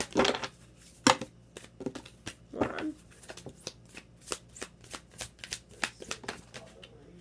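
A deck of oracle cards being shuffled by hand: a quick, irregular run of card snaps and flicks.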